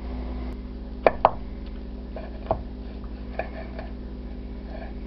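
Santoku knife chopping on a wooden cutting board: a few sharp knocks of the blade on the board, two close together about a second in, another at about two and a half seconds, then some lighter taps.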